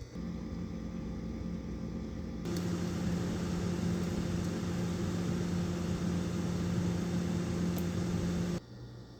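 Steady electric hum of a mains-powered appliance, getting louder with a rushing hiss about two and a half seconds in, then cutting off suddenly near the end.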